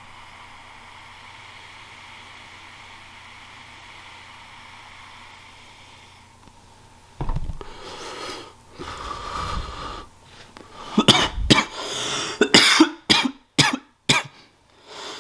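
A man coughing after a hit from a disposable vape pen: a breathy exhale starting about seven seconds in, then a string of sharp, loud coughs.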